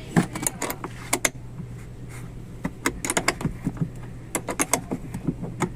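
Irregular sharp clicks and clinks of metal parts being handled, coming in quick clusters, over a steady low hum.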